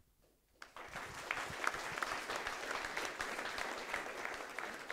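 Audience applauding, dense clapping that starts about half a second in and keeps up at an even level.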